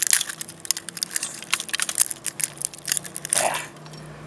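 Broken plastic casing and circuit-board pieces of an old Sharp electric calculator crunching and clicking as they are handled and pulled apart, with rapid irregular clicks that thin out near the end.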